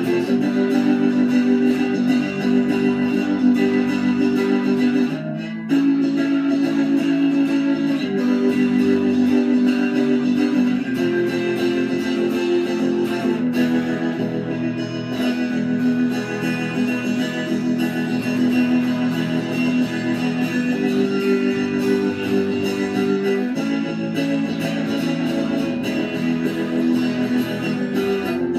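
Electric guitar played solo: a continuous run of picked notes and chords, with a brief break about five seconds in.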